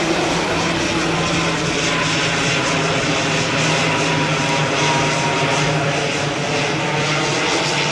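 Propeller airplane flying low overhead, a loud, steady engine and propeller drone with a steady hum.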